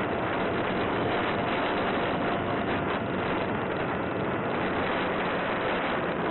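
Steady rush of airflow over the onboard camera's microphone on a small electric RC plane in flight, mixed with the even drone of its motor and propeller and a faint steady whine.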